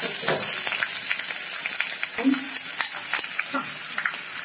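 Chopped onion and spice pastes sizzling in hot oil in a kadai, with a steady hiss and the light clicks and scrapes of a spoon and spatula against the metal pan.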